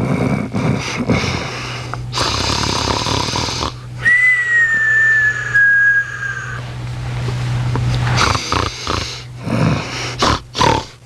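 Rat terrier snoring in a run of rasping breaths that sound much like a person snoring. About four seconds in, one breath carries a high whistling wheeze lasting a couple of seconds and dropping slightly in pitch.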